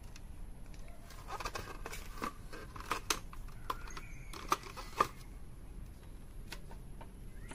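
Plastic juicer base gears and small gear couplings handled on a hard surface: a run of light clicks and taps with some rustling, starting about a second in and dying away after about five seconds.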